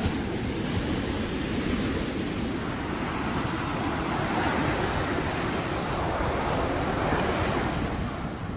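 Ocean surf breaking and washing up a sandy beach, with wind rumbling on the microphone. The surf swells louder about halfway through and eases near the end.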